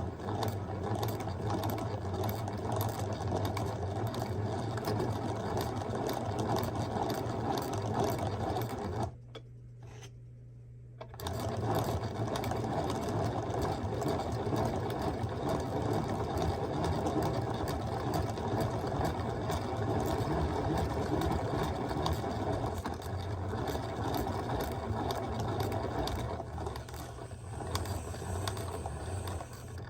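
A small machine running with a fast, even mechanical whir and rattle and a low hum. It stops for about two seconds around nine seconds in, then starts again and runs until just before the end.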